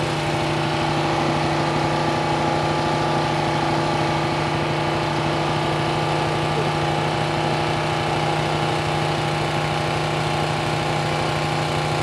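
An engine running at a steady speed, its hum unchanging, over the steady gush of well water pouring from a PVC pipe onto muddy ground.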